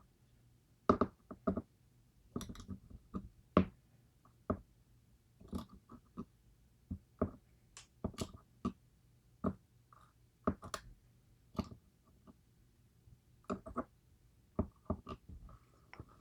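Irregular light clicks and taps as small metal parts of a gutted DOM IX Twinstar pin-tumbler lock, its pins and springs, are handled, sorted and set down. A few taps carry a short metallic ring.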